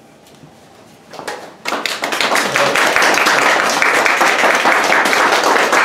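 Small audience applauding. After a short hush the clapping starts about a second and a half in and holds, many hands together.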